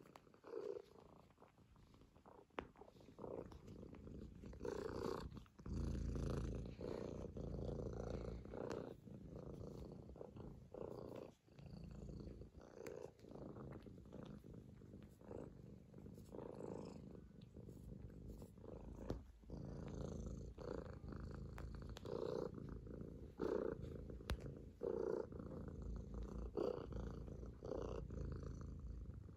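Domestic kitten purring continuously while kneading on a lap, quieter for the first few seconds and then louder, with a few faint clicks.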